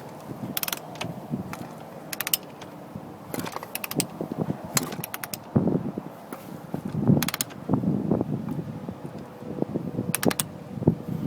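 Kick-starter on a 2001 Honda CR125R two-stroke being kicked over again and again: irregular mechanical strokes with sharp ratcheting clicks. The engine turns over without catching; it won't start even though the owner reports a good spark and compression.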